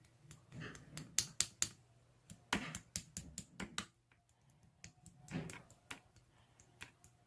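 Irregular light clicks and taps, a few close together, with short bouts of rustling and a faint steady hum underneath.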